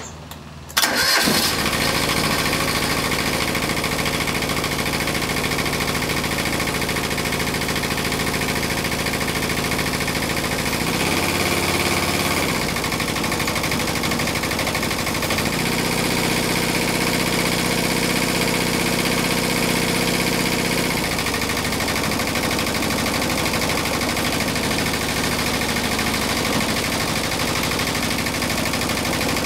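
Kubota Z482 two-cylinder diesel starting about a second in and then running steadily, its pitch shifting briefly near the middle and again for several seconds as the engine speed changes. It runs smoothly on both cylinders after the injection pump's broken element spring was replaced, the happiest it's ever been.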